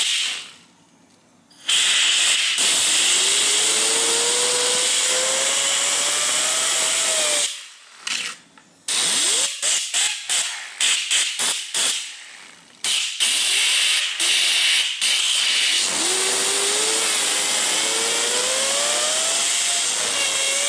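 Compressed-air blow gun hissing into the blades of a 3D-printed turbine wheel, with the wheel's whine rising in pitch as it spins up. The air stops about seven seconds in, comes back as a string of short blasts, then runs long again near the end while the whine climbs once more.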